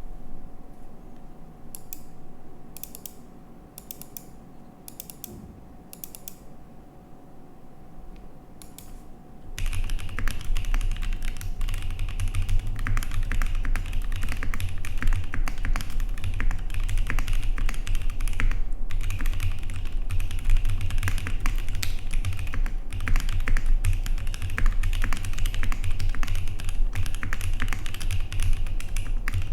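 Mechanical keyboard typing on a GOK 7V with a polycarbonate plate, plate foam, Gazzew Boba U4T 68 g tactile switches and JTK Zen keycaps. A handful of separate key presses for the first nine seconds or so, then continuous fast typing.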